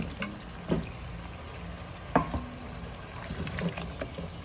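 Raw potato chunks tumbling from a steel bowl into a pot of simmering curry sauce, then a wooden spoon stirring them in, with scattered soft knocks against the pot, the sharpest about two seconds in, over a steady low hum.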